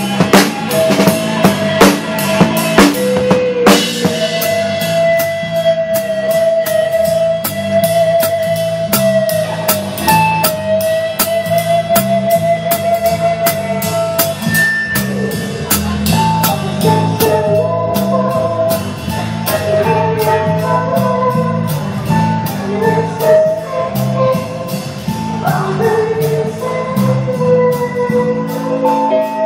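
Live rock band playing with drum kit, bass guitar, guitar and keyboard: a busy drum fill for the first few seconds, then long held melody notes over a steady bass line and beat.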